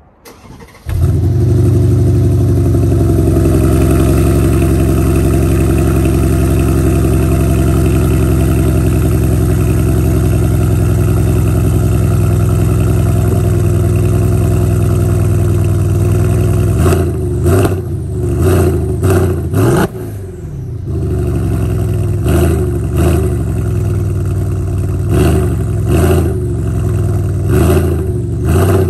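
Mercedes-Benz E550's twin-turbo V8, fitted with aftermarket downpipes and a stage 2 tune, cold-starting: it catches about a second in and settles into a steady high idle. From a little past halfway it is blipped over and over, revving up and dropping back each time.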